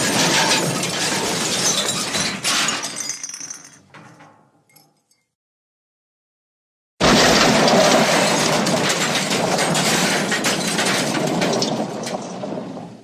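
Crash sound effects: a din of breaking and shattering with clinking debris that dies away over a few seconds. After a few seconds of silence a second crash starts abruptly and cuts off near the end.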